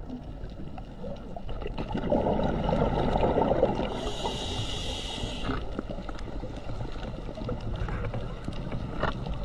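Underwater ambient noise: a steady low rush of water, louder between about two and four seconds in, with a brighter hiss from about four to five and a half seconds in and scattered faint clicks.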